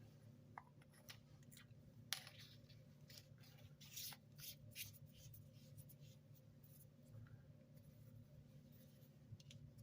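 Faint scattered clicks and rustles of hands handling packaging, with one sharper click about two seconds in.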